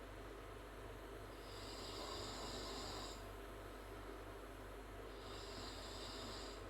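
A sleeping girl snoring through an open mouth: slow, hissing breaths, one starting about a second and a half in and another near the end. A steady low hum runs underneath.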